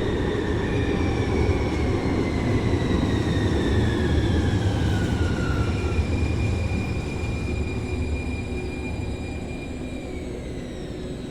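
Muni Metro two-car light rail train pulling into an underground station, rumbling, with electric whines falling in pitch as it brakes. The last whine holds steady, then drops away about ten seconds in as the train comes to a stop.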